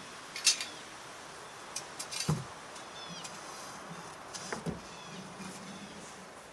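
Sharp clanks and knocks of metal gate hardware being handled: one about half a second in, a cluster around two seconds, and a pair around four and a half seconds. Small birds chirp short falling notes in between.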